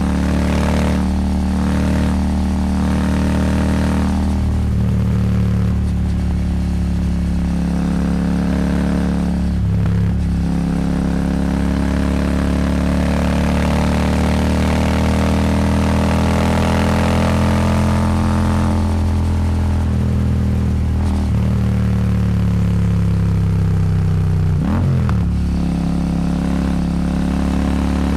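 Royal Enfield Super Meteor 650's 648 cc parallel-twin engine running at steady cruising revs through an aftermarket slip-on exhaust, with wind noise. The revs briefly drop and pick up again about ten seconds in and again near the end.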